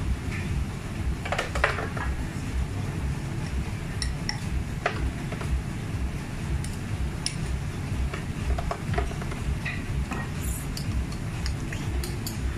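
A spoon scraping and clinking against a blender jar as frozen slush is scooped out and dropped into a glass, in scattered irregular clicks. A steady low rumble runs underneath.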